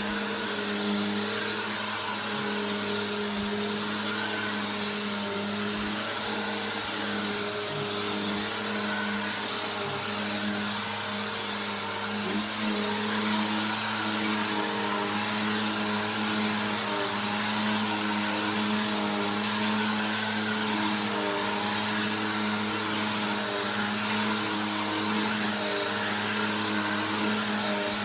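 Bissell PowerForce Helix upright vacuum cleaner running with a steady motor hum and rushing air, a little louder from about twelve seconds in.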